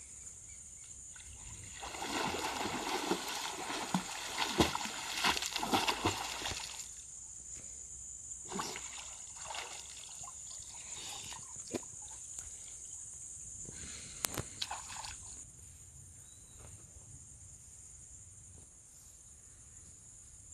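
Creek water splashing and sloshing around a person wading chest-deep and feeling along the bottom for freshwater mussels, busiest for a few seconds about two seconds in, then scattered splashes that die away past the middle.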